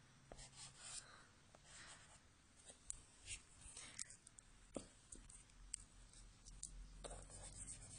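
Faint rubbing and scratching of a kneaded eraser worked in small circles over charcoal on drawing paper, with scattered soft clicks and ticks as the eraser is pinched and reshaped in the fingers.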